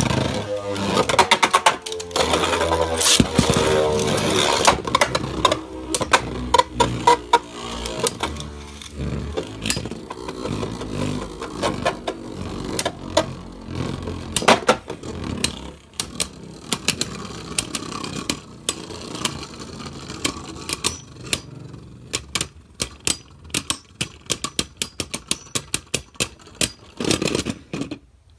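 Two Beyblade Burst tops, one of them Dynamite Belial, spinning in a clear plastic stadium. They whir loudly over the first few seconds, with a pitch that sweeps. Then come repeated sharp clacks as they hit each other and the stadium wall, coming thick and fast near the end before stopping.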